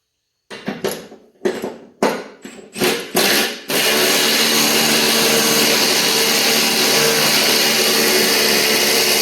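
Impact wrench on a 7/8 socket driving down a pulley nut on a lawn mower deck spindle: several short trigger blips in the first few seconds, then a steady run of about six seconds.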